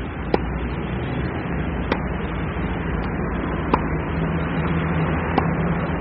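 Tennis ball being hit back and forth with rackets: five sharp pops, spaced about one to two seconds apart, over a steady background rumble.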